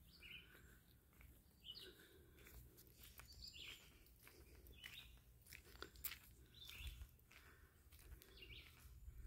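Faint outdoor birdsong: one bird repeating a short chirpy phrase every second or two, with soft crunching footsteps on a gravel-strewn path.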